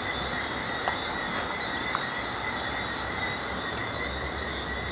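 Insects chirring steadily as a continuous high-pitched drone over outdoor background noise, with a couple of faint clicks.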